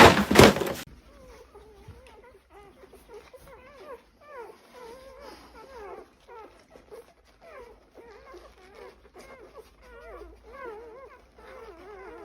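A dog whining and whimpering over and over in short, wavering cries, after a loud clatter in the first second.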